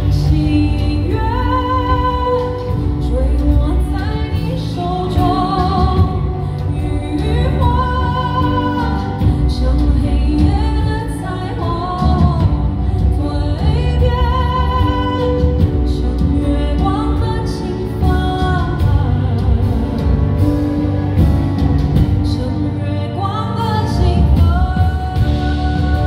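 Live band music: keyboard, upright bass and drums under a sliding melody line with vibrato, the singer's microphone held down in what looks like an instrumental passage.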